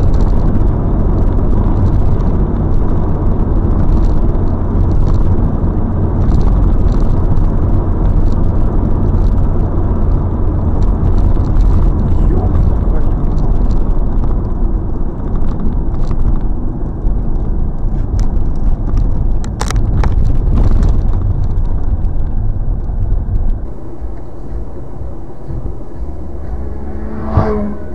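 Car driving noise picked up by a dash cam inside the car: a loud, steady rumble of engine and tyres on the road, with a few sharp knocks about twenty seconds in. Near the end it changes abruptly to a quieter, steady cabin and road noise.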